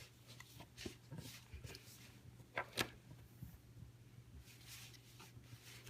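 Faint, scattered soft taps and handling noises of hands pressing and shaping modelling dough flat on a tabletop, with a couple of slightly louder knocks near the middle, over a steady low hum.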